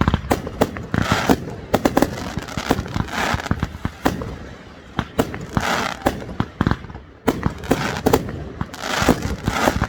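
Fireworks going off in a rapid barrage: many sharp booms and reports in quick succession, with bursts of crackle from crackling stars every second or two.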